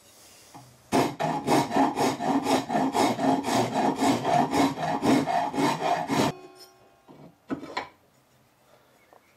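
Farrier's rasp cutting an ash axe haft in quick back-and-forth strokes, about three to four a second, stopping about two-thirds of the way through. A brief knock follows a second later.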